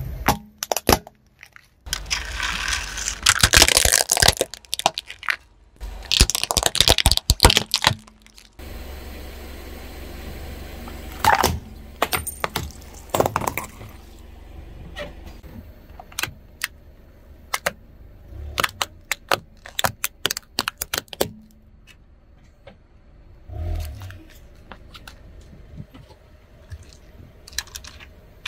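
Objects crunching and crackling as a car tyre crushes them, in two dense stretches, followed by scattered sharp clicks and cracks over a low steady hum.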